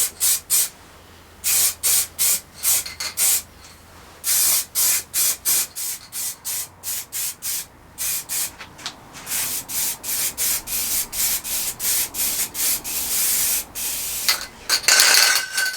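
Aerosol spray-paint can hissing in many short bursts as a coat is sprayed on, with a few longer passes near the end; the tin is nearly empty.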